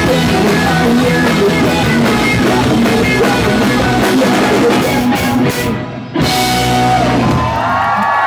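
Live rock band (electric guitars, bass and drum kit) playing loud, breaking off about six seconds in; a final held chord then rings out briefly as the song ends.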